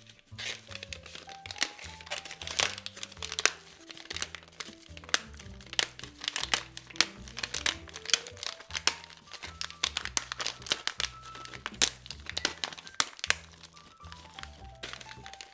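Paper wrapper of a chocolate bar being crumpled and crinkled by hand as it is worked open, with many sharp crackles, over background music.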